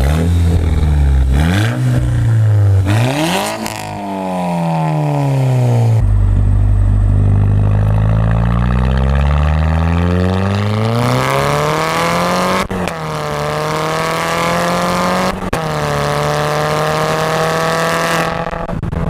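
Volkswagen Mk6 GTI's turbocharged four-cylinder engine revving through a Beluga Racing catback exhaust and non-catted Eurojet downpipe: two quick blips up and down, then a long, slow climb in revs that breaks off sharply and holds at a steady high pitch.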